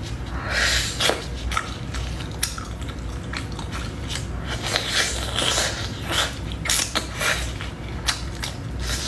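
Plastic-gloved hands pulling apart a piece of braised chicken close to the microphone, with the gloves crinkling and the meat tearing, mixed with eating: an irregular run of short crackles and clicks.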